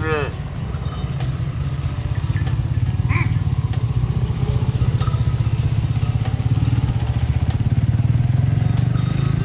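The tail of a cow's moo, falling in pitch, right at the start, then a loud low rumble with a fast, even flutter that runs on throughout. A brief higher call comes about three seconds in.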